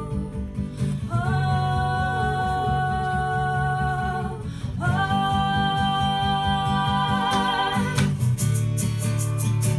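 Acoustic guitar strummed live under a woman's voice singing two long held notes. The voice drops out about eight seconds in, and the guitar carries on alone, strummed harder.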